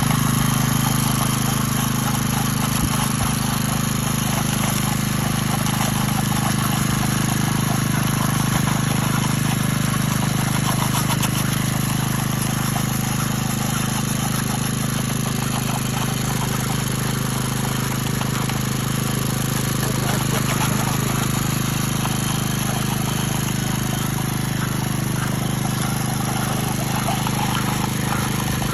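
Concrete power trowel running with a steady, even engine hum.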